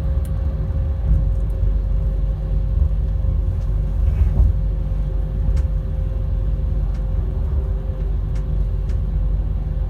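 Class 390 Pendolino electric train at a steady speed, heard from the passenger saloon above its Alstom traction motors: a heavy low rumble of the running gear with a steady, even-pitched hum from the motors, and a few faint clicks.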